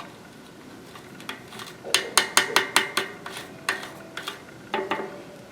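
Metal clinking and clicking of bicycle cassette parts and a tool on the rear hub: a quick run of sharp ringing clicks starting about two seconds in, thinning out near the end.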